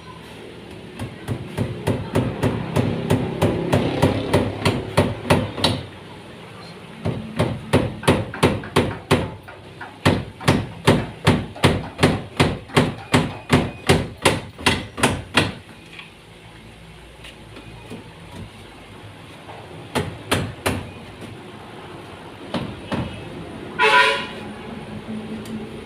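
Hammer driving nails, in two long runs of steady blows at about two to three strikes a second, then a few scattered taps. A short pitched toot near the end.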